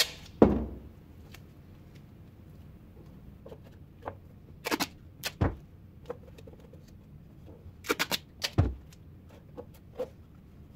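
Adhesive tape being handled and torn into pieces on a workbench: a few scattered short crackles and clicks, with a couple of dull knocks against the bench.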